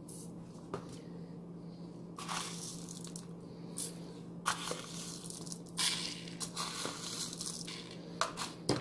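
Whole fennel and coriander seeds being spooned into a pot of meat and water with a metal spoon: faint, scattered scrapes and taps of the spoon and the soft rustle of seeds dropping in, a few a second apart, over a steady low hum.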